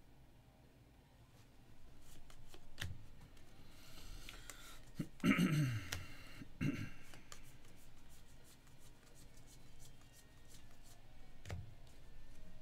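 Packs of Panini Score football trading cards being handled: scattered clicks and rustles of cards being flipped and stacked, with a burst of wrapper crinkling about four seconds in. Just after that, a brief, falling vocal sound from the handler is the loudest moment, with a smaller one about a second later.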